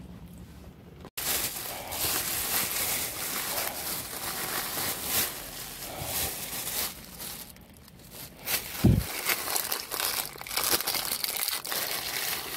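Thin plastic grocery bags rustling and crinkling as a hand rummages through them, starting abruptly about a second in. There is one dull thump about two-thirds of the way through.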